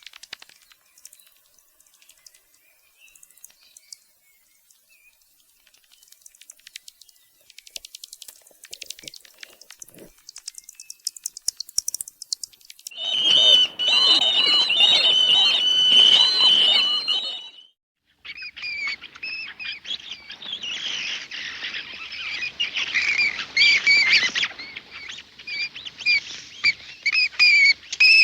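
Bats squeaking: first scattered sharp high clicks and ticks, then from about halfway a dense run of high-pitched squeaking calls that breaks off for a moment and starts again for the rest.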